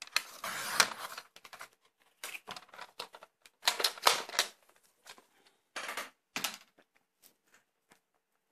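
Sliding paper trimmer cutting cardstock: a scraping stroke about a second long as the blade carriage runs down the rail. Then several short clusters of clicks and rustles, up to about two-thirds of the way through, as the trimmer and the cut card pieces are handled.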